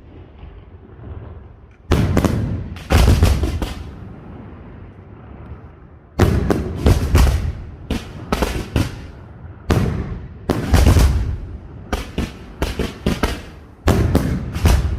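Castillo of aerial firework shells by Pirotecnia Nadal-Martí bursting in loud bangs, each trailing off in a rumble, with faint crackling in between. Two bangs come about a second apart near 2 s. From about 6 s the shells burst in fast volleys of several bangs each, one after another.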